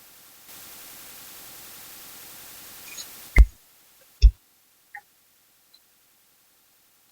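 A steady hiss that cuts off suddenly about three and a half seconds in, followed by three loud short thumps and a few faint clicks.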